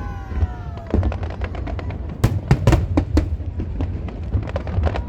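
Aerial fireworks bursting in a rapid, uneven series of sharp bangs over a low rumble. A whistling shell's tone slides down and fades about a second in.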